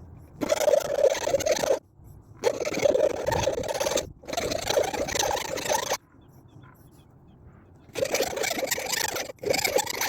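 A tool scraping over an antique carpenter's hatchet in repeated rasping strokes, each about one and a half to two seconds long with short pauses between, and a longer pause in the middle.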